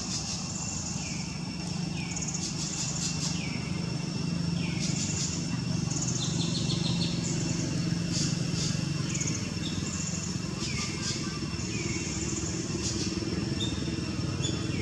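High chirping calls repeated roughly once a second, each a buzzy trill that ends in a quick downward sweep, over a steady high ringing and a low, steady rumble.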